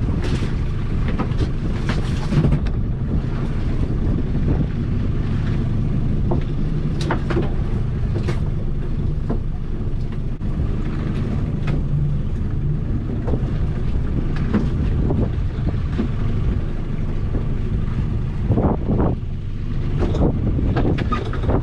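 A small open boat's steady low rumble with wind buffeting the microphone, and scattered knocks and clatters as lobster pots and rope are hauled aboard and handled on deck, a cluster of them near the end.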